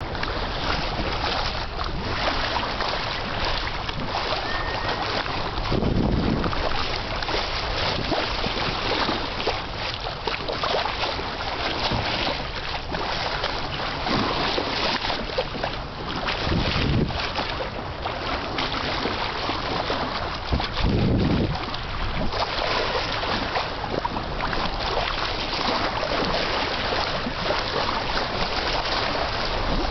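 Water rushing past a moving boat's hull and bow wave, with wind blowing across the microphone; a few louder low gusts about six, seventeen and twenty-one seconds in.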